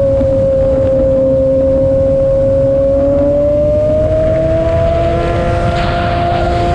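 Sportbike engine running at road speed, a steady note that climbs in pitch from about halfway through as the bike accelerates. There is a low rushing of wind on the microphone underneath.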